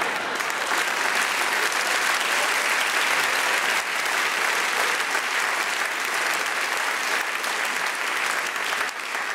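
Large studio audience applauding: a long, steady round of clapping from many hands that eases a little near the end.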